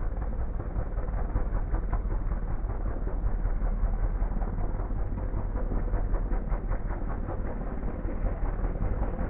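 Helicopter flying overhead, its rotor blades chopping in a steady, fast beat over a deep rumble.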